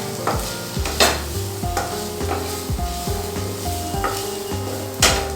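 Onions, spice pastes and chopped green chillies sizzling in oil in a kadai while a spatula stirs and scrapes against the pan, with two louder scrapes about a second in and near the end.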